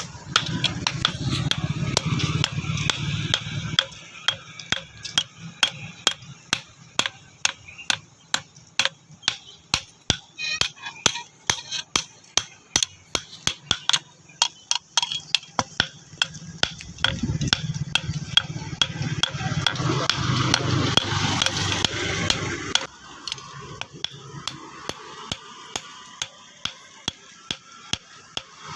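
Blacksmith's hand hammer striking metal as a tool is forged, a steady run of about two sharp blows a second. Voices talk over it at times.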